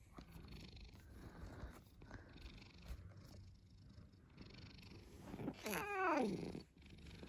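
Domestic tabby cat purring while being stroked, then, about five and a half seconds in, one loud drawn-out meow that falls in pitch.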